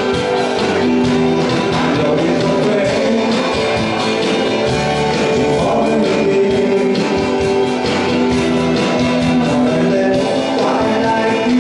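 A man singing a pop-rock song to his own strummed acoustic guitar, amplified through a PA, with a steady beat behind him.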